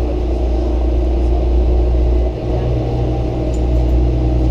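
Steady low rumble with a machine-like hum through it, dipping briefly about halfway through.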